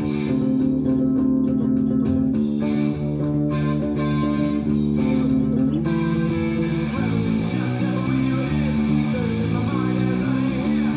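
Four-string electric bass guitar played with the fingers along with a punk rock recording full of guitar. It holds long notes at first, then about six seconds in moves to a run of changing notes about two a second.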